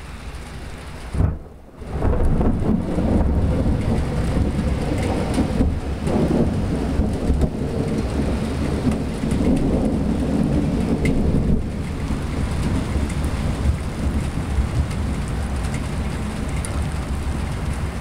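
Steady rain falling on wet pavement, with a long, low rumble of thunder that builds about two seconds in, is heaviest about ten seconds in, then eases off.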